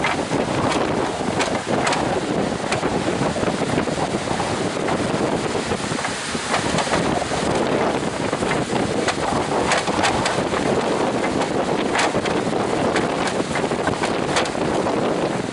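Strong wind buffeting the microphone as a steady, loud roar with frequent crackling gusts.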